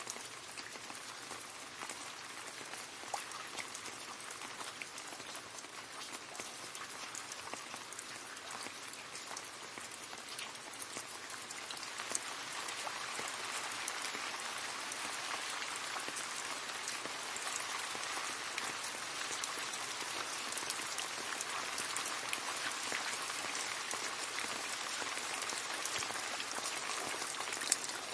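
Rain falling and splashing into a puddle: a steady patter of many small drop impacts, growing a little heavier about twelve seconds in.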